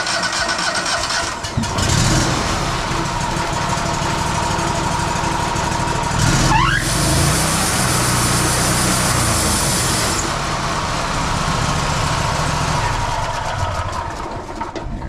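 Wood-Mizer LT50 band sawmill running with the clutch engaged, its engine driving the band blade without cutting, a test run after the mill has sat idle, with the blade at a slightly loose tension. A short rising whine comes about six and a half seconds in, and the sound fades near the end.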